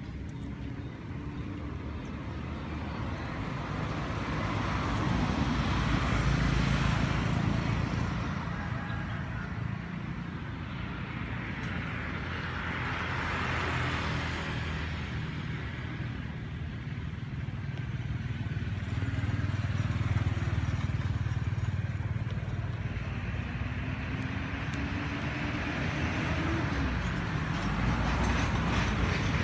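Motor vehicles passing on a road, one after another: a low engine hum with broad road noise swelling and fading every several seconds, and one engine note rising in pitch about three quarters of the way through.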